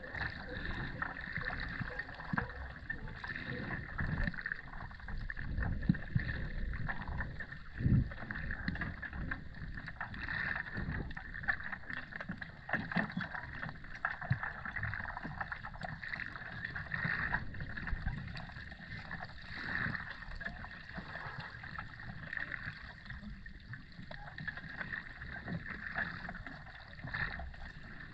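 Underwater ambience as picked up by a submerged camera: a muffled, churning water wash with low rumbles and many small scattered clicks and crackles.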